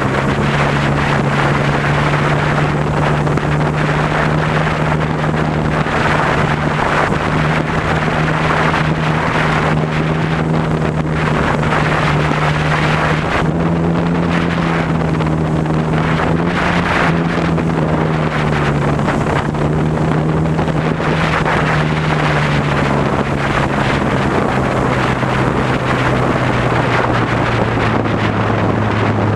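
Cub airplane's motor and propeller running at a steady cruise throttle, heard from an onboard camera with wind rushing over the microphone. The pitch wavers a little midway and drops just before the end as the throttle comes back.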